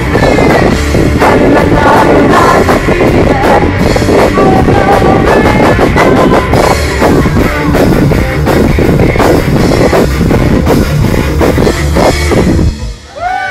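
Live rock band playing loud, with electric guitar, drum kit and a female lead singer, heard through a mobile phone's microphone, harsh and overloaded. The song stops abruptly near the end.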